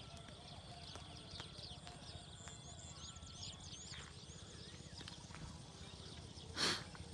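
Many birds chirping in quick, short calls over a steady high-pitched insect-like whine. About six and a half seconds in comes one brief, loud noisy burst.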